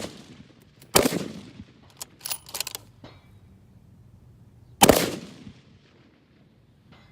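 Two rifle shots, about four seconds apart, from a Bergara B14 bolt-action rifle in 6.5 Creedmoor fitted with a Bergara ST1 steel muzzle brake. Each shot is a sharp, loud crack with a long fading echo, and a few light clicks fall between them.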